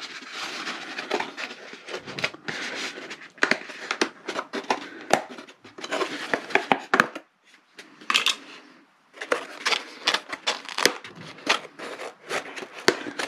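Handling noise of an RC plane's cowl being slid over and rubbed against a plywood motor box during a trial fit: irregular clicks, knocks and short scrapes, with two brief pauses past the middle.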